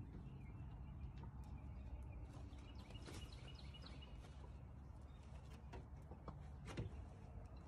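Very quiet pen ambience: a low steady hum with scattered faint clicks, and a short run of faint high bird chirps about three seconds in.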